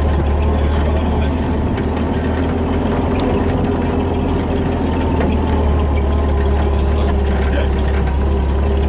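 Vehicle engine running steadily at low speed in a convoy of WWII jeeps, heard from on board a moving vehicle: an even low drone.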